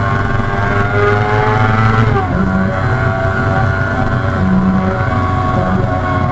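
Kawasaki Ninja 636's inline-four engine running under way. Its revs climb slowly, drop sharply a little over two seconds in, then hold and slowly climb again.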